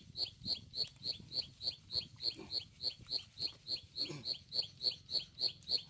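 A small animal calling steadily: one short, high chirp repeated evenly about four times a second.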